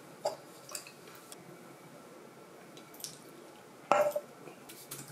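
Faint clinks of tableware while eating, then a louder knock about four seconds in as an aluminium beer can meets the wooden table.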